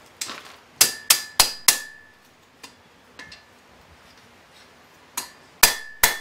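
Ball-peen hammer striking a red-hot blade held on the edge of an anvil, each blow ringing: four quick blows about a second in, a pause, then steady blows resume near the end. This is hot forging, drawing out the edge bevel of a letter opener made from a horseshoe.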